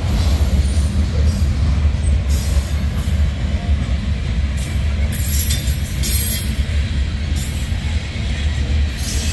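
Freight train rolling past with a steady low rumble, and a high wheel squeal that comes and goes several times.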